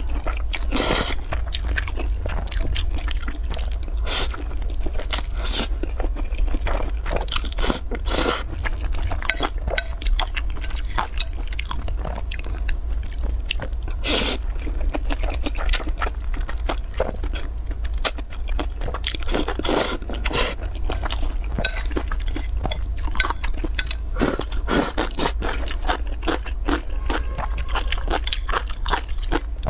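Close-up mukbang eating sounds: saucy noodles being slurped and chewed, with irregular wet smacks and now and then chopsticks scraping the bowl, over a steady low hum.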